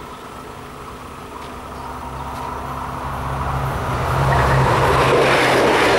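Two-car Minuetto diesel multiple unit approaching and passing a level crossing: the low diesel engine note grows steadily louder from about two seconds in, and the rush of wheels on rail is loudest over the last two seconds.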